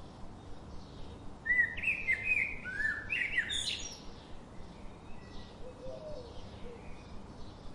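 Birdsong: a run of quick chirped notes starting about one and a half seconds in and lasting about two and a half seconds, with fainter chirps before and after it.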